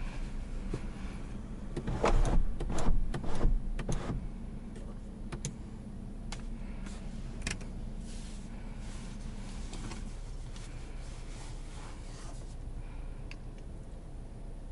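Handling noises inside a car cabin: a few seconds of rustling and clicks about two seconds in, then scattered light ticks over a low steady hum, which changes about ten seconds in.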